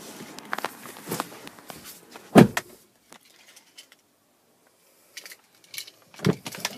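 Keys and a key fob rattling in the hand with light clicks, and a heavy thump about two and a half seconds in, with a second, smaller thump near the end.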